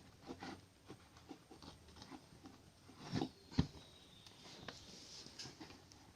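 Scattered light clicks and taps of hand work on small parts, with louder knocks just after three seconds and about three and a half seconds in.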